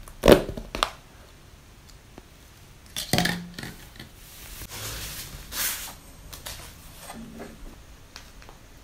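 Thin clear plastic dome lid being pried off a plastic takeaway cup, crackling and popping sharply just after the start, with more plastic crackling about three seconds in and a longer rustle around five seconds. A few small clicks follow near the end.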